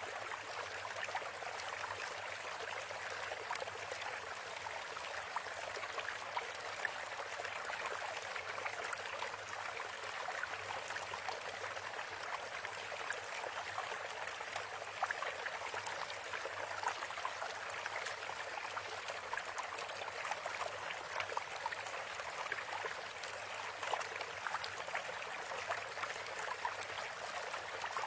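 Sheet of origami paper rustling and crackling under the fingers as it is folded and creased, with many small crackles over a steady hiss.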